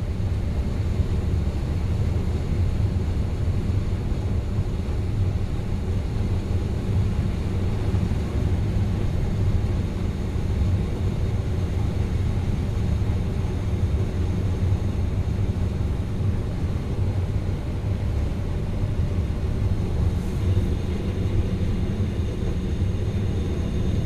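Combine harvester running steadily while harvesting corn, heard from inside the cab: an even low drone of the engine and threshing machinery.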